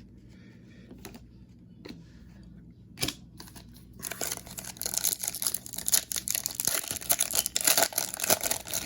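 Plastic wrapper of a Topps baseball card pack being torn open and crinkled. There is a single sharp click about three seconds in, and dense crackling from about four seconds in.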